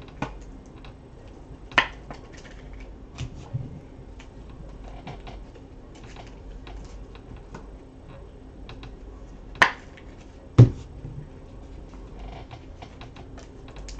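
Trading cards and clear plastic sleeves being handled: a run of light clicks and taps as cards are flipped through and set down, with a few sharper snaps, the loudest about ten and a half seconds in.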